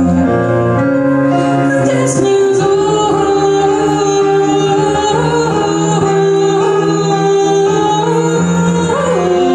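A woman singing long held notes with a slight waver, accompanied by a Nord Stage keyboard and a bowed cello, played live.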